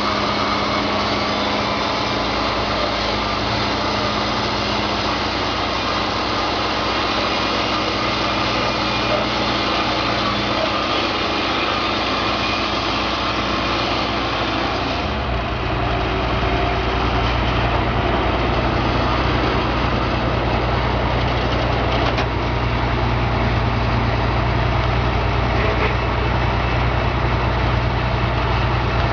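Small engine of a portable sawmill running steadily; about halfway through, its low hum grows stronger and its upper hiss drops a little.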